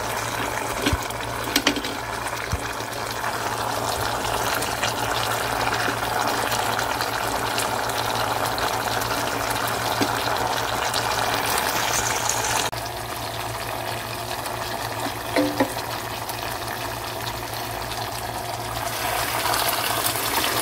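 Steady bubbling and sizzling from a pot of garlic, hoisin and peanut butter sauce cooking on a hot plate, with a few clicks of a wooden spatula against the pot. A low steady hum runs underneath.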